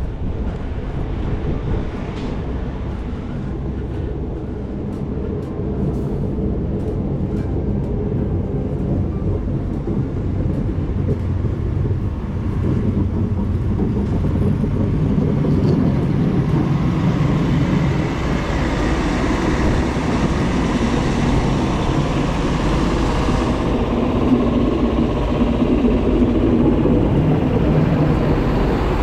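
Steady low rumble of passing vehicle traffic, growing louder over the stretch. A swell of tyre hiss on the wet, slushy road rises about two-thirds of the way through and cuts off sharply.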